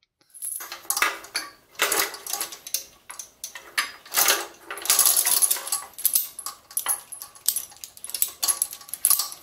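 Steel lifting chain clinking and rattling as it is hooked onto eye hooks threaded into a Kohler K-series engine's cylinder head. The clinks come in irregular runs with short pauses.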